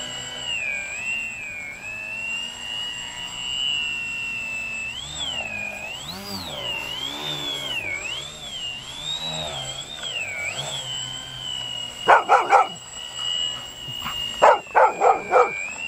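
High whine of a twin-motor foam RC model airplane's propellers, rising and falling in pitch as it swoops low. About twelve seconds in a golden retriever barks twice, then gives a quick run of excited yipping barks near the end.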